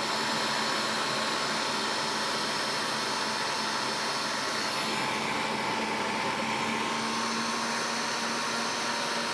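Electric mixer running steadily, whipping egg whites and sugar into a meringue.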